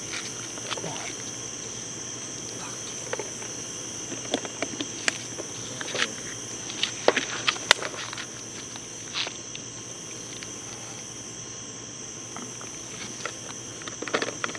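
A steady, high chirring of night insects runs throughout. Over it come scattered sharp clicks and knocks, thickest in the middle, from the bottle and its contents being handled.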